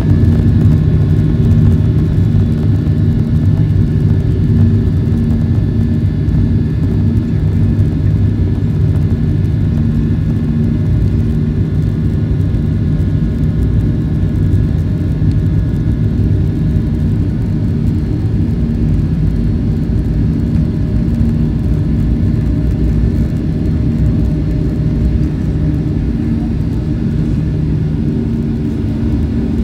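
Jet airliner rolling on the ground, heard from inside the cabin: a steady loud rumble of engines and wheels with a low hum, easing slightly toward the end.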